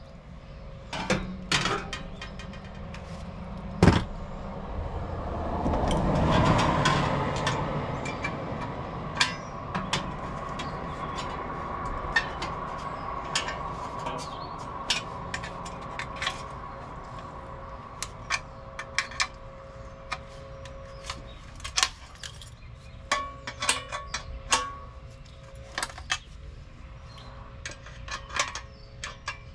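Scattered clicks, clinks and knocks of hand tools and metal parts being handled during condenser fan motor work, over a faint steady hum. A louder swelling noise comes about six seconds in.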